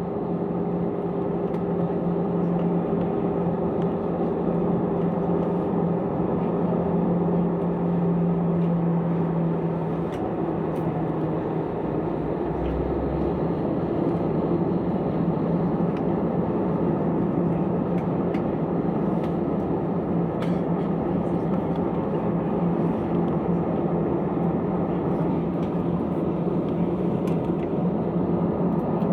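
Airliner's jet engines heard from inside the passenger cabin during the takeoff run and climb: a steady, even rush of engine and air noise, with a low steady hum that fades about ten seconds in.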